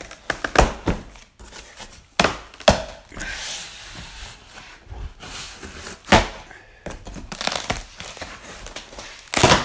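Long wooden gunwale strips being handled in a cardboard box: a series of sharp wooden knocks and clatters as the strips bump each other and the box, with rustling of cardboard and plastic wrap between them. The loudest knock comes near the end.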